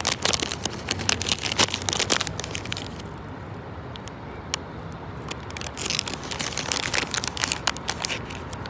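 Crinkling and crackling of a packet being handled, in two spells of quick clicks with a quieter gap between, over a low steady rumble.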